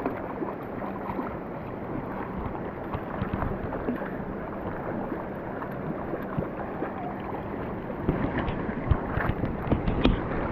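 Shallow creek water rushing over a gravel bed, with wind buffeting the microphone. From about eight seconds in come a run of sharper splashes and knocks as someone wades along the stony edge of the stream.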